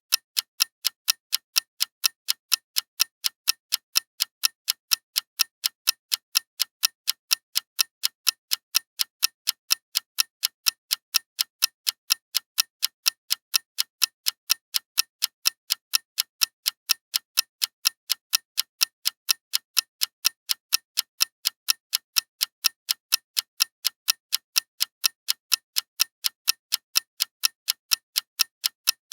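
Clock ticking: sharp, evenly spaced, crisp ticks, a few each second, at a steady rhythm.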